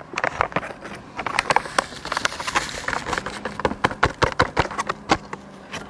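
Irregular clicks and short rustles at close range, like hands handling plastic bait packets and gear, several a second.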